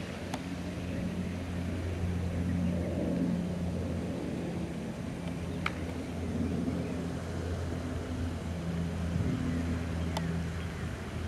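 A golf cart's engine running steadily, its low hum shifting in pitch slightly near the end, with three brief sharp clicks spread through it.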